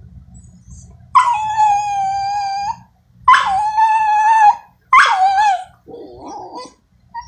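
A dog giving three high, drawn-out whining howls, the first two about a second and a half each and the third shorter, followed by a lower, rougher whimper near the end.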